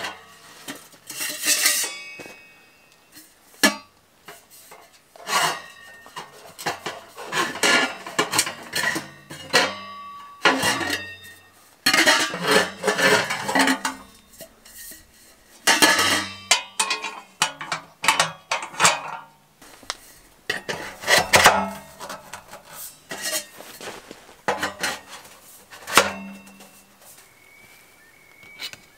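Stainless-steel stove pipe sections sliding, scraping and clanking against each other and against a steel tent wood stove as they are handled, in irregular clusters of metallic knocks and clinks.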